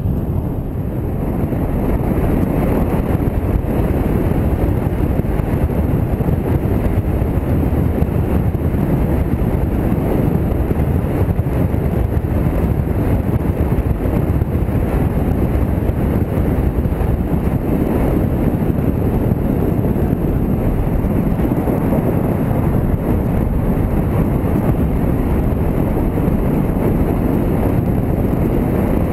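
Steady low rush of wind buffeting the microphone and road noise from a moving motorcycle, getting a little louder about a second in.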